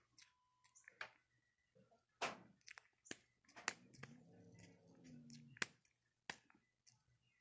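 A Java macaque grooming a person's hair close to the microphone: a string of sharp, irregular clicks and rustles as it picks through the hair. A short, soft, low hum-like voice sound comes in about four seconds in and fades after about a second and a half.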